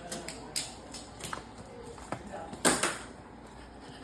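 Scattered household clicks and knocks, with one louder clack a little under three seconds in.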